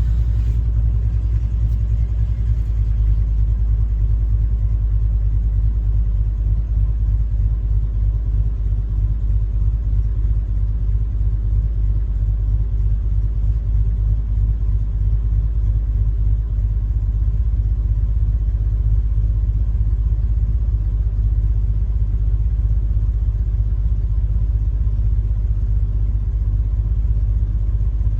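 Land Rover driving steadily along a dirt trail: a constant low engine and drivetrain rumble mixed with tyre noise.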